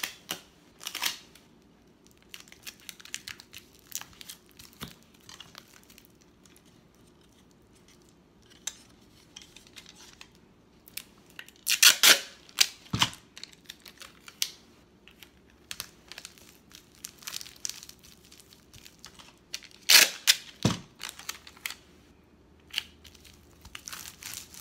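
Plastic cling wrap rustling and crinkling as it is handled, with scattered small clicks and two loud tearing rips about twelve and twenty seconds in.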